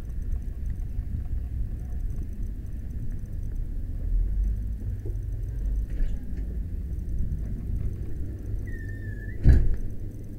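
Steady low rumble on a body-worn camera while walking, with a faint click about six seconds in. Near the end comes a short, wavering high beep, then a sharp knock, the loudest sound, as the gloved hand with the wallet reaches the shop counter.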